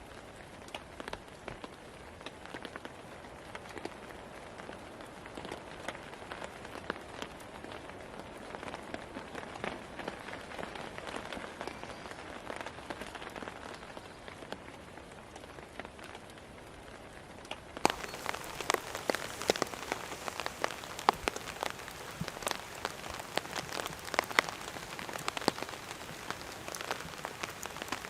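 Steady light rain falling, with scattered sharp drop hits. About two-thirds of the way through it cuts abruptly to louder rain, with many more distinct drops striking close by.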